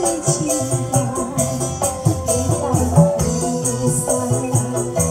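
Dangdut koplo music played loud through a stack of DAT DT 860VT loudspeaker cabinets, with an organ-like keyboard melody over drums and tambourine.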